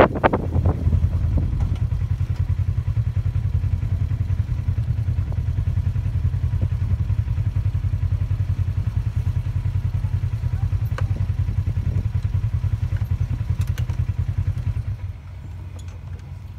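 Side-by-side UTV engine idling close by, a steady low pulsing drone that drops away near the end. A few knocks and clatters come right at the start.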